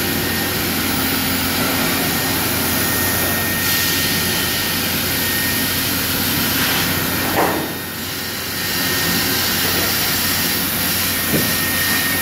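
Gantry CNC router with a swivelling head running: a steady loud machine whir and hiss with a thin high whine over it. About seven seconds in there is a short sharp sound, then the noise drops a little for about a second, and a brief click comes near the end.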